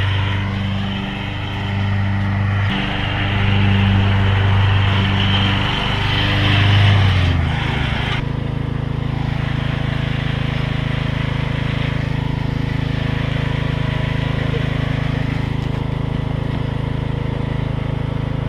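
Gasoline lawn mower engine running. For about the first seven seconds its note swells and dips in pulses, then it settles into an even, steady drone.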